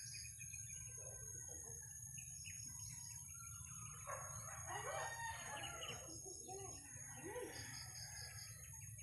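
Faint bird calls. A longer call of several pitches comes about four to six seconds in, and short high chirps sound now and then.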